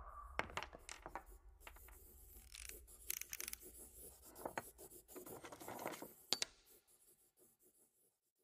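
Logo sound effect: scattered light clicks and clatters of small metal letters tumbling into place, mixed with scratchy pen-on-paper scribbling, with the sharpest click about six seconds in, then fading out about a second before the end.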